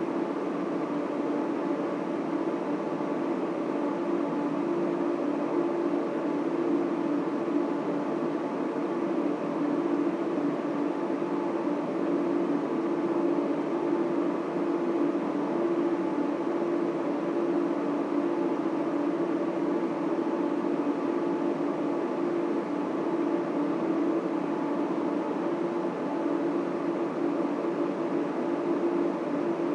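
Data center equipment running: a steady drone of cooling fans and air handling with several steady hum tones, the strongest low to middle in pitch.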